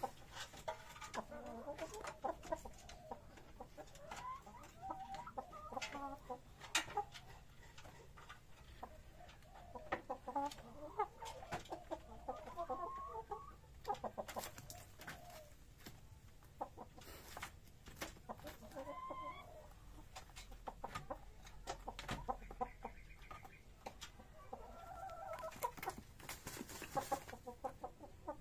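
A game rooster clucking softly in short runs, with scattered sharp clicks through the clucks.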